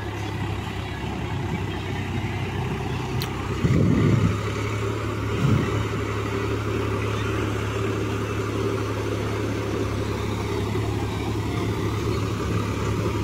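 Swaraj 735 FE tractor's diesel engine running steadily at low revs. A brief low rumble comes about four seconds in, and a shorter one about a second and a half later.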